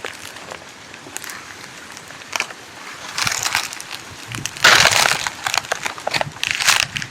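Footsteps crunching and crackling on dry fallen leaves, in uneven steps with the loudest crunch about the middle.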